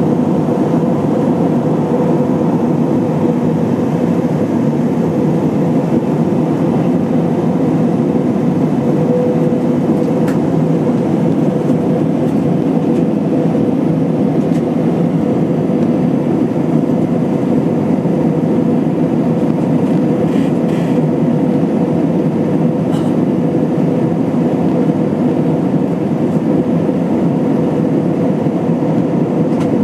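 Airliner cabin noise inside an Airbus A320-232 in flight: a steady rush of airflow and its IAE V2500 turbofan engines, with a steady hum running through it and a few faint ticks.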